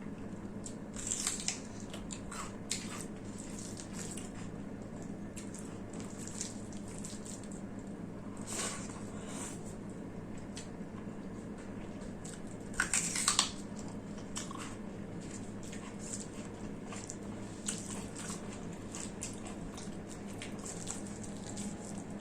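Close-miked eating sounds: wet chewing and mouth clicks of rice and mutton curry, with two louder bursts of chewing, about a second in and again about thirteen seconds in. A steady low hum runs underneath.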